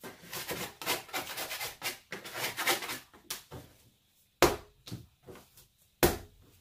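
Hands and a plastic dough scraper working a ball of sourdough on a wooden board. A run of scraping and rubbing comes first, then two thuds about a second and a half apart as the dough is pressed and set down on the board.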